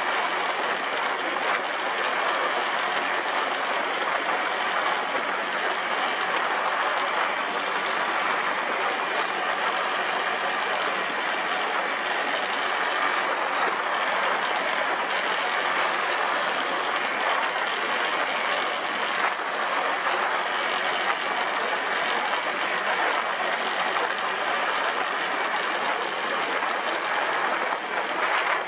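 An ATV being ridden: its engine runs steadily under an even rushing noise that does not change in level.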